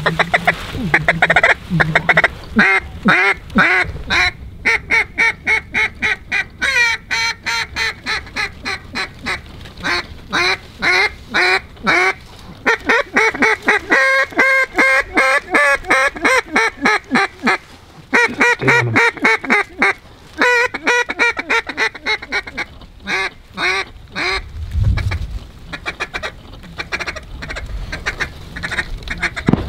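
Mallard duck call blown in long strings of loud, rapid quacks, several a second, to draw circling ducks toward the decoys. The calling breaks briefly past the middle and thins out near the end.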